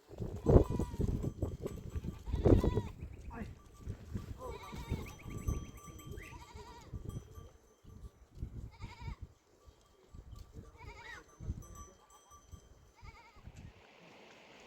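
A flock bleating. The loudest bleats come in the first three seconds, then shorter, wavering bleats follow every second or two.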